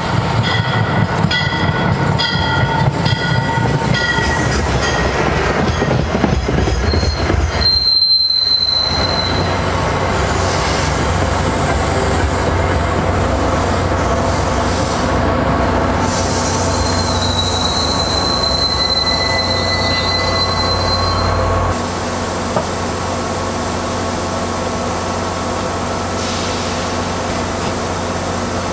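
MBTA commuter rail train with bilevel coaches passing close by, its wheels running steadily on the rails. A thin, high wheel squeal rises briefly about eight seconds in and again for several seconds later on, and the sound eases a little as the last cars go by.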